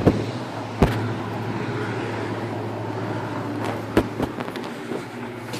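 Car driving: a steady low hum of engine and road noise, with a few sharp knocks about a second in and twice around four seconds in.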